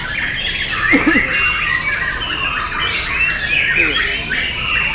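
Many caged songbirds, white-rumped shamas among them, singing at once: a dense, unbroken tangle of rapid high whistles, trills and chirps.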